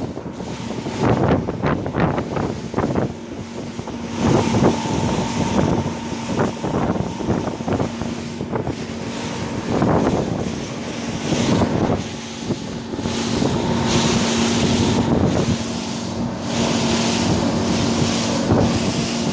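Mercury Verado 300 hp V8 outboard running steadily at high speed, its constant engine tone under heavy wind buffeting on the microphone and water rushing along the hull, swelling and easing irregularly.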